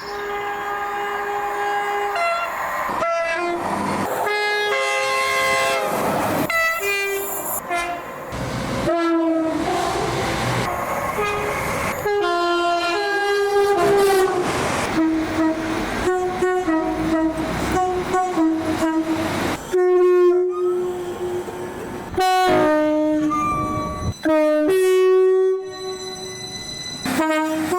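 Train horns sounding in a string of abruptly cut clips, each blast a steady chord held for one to a few seconds. In one clip near the middle the horn slides down in pitch.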